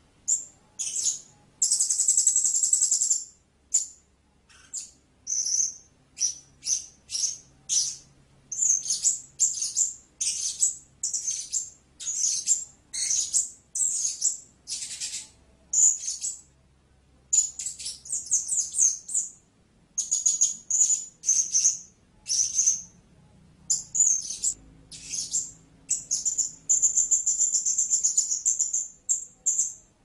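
Blue-crowned hanging parrot calling: quick irregular series of short, very high-pitched chirps, with a longer held call about two seconds in and another near the end.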